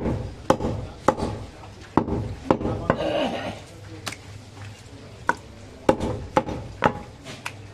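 Butcher's cleaver chopping goat meat on a wooden chopping block: about a dozen sharp chops, most about half a second apart, with a few short pauses between runs.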